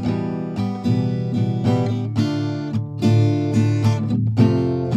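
Background music of acoustic guitar, a run of plucked and strummed notes.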